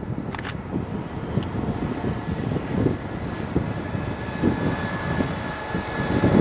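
Amtrak passenger train passing at speed: the locomotive and a steady rush of wheels on rail with uneven low thumps as the cars go by. A couple of sharp clicks sound about half a second in.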